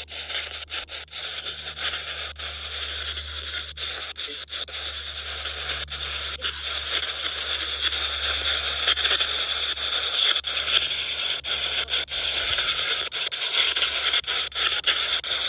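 Spirit box radio hissing with steady static, broken by frequent quick clicks as it sweeps from station to station.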